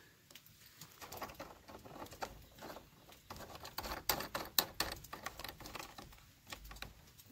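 Light, irregular clicks and scrapes as a female-to-female garden hose adapter is screwed by hand onto a brass hose bibb.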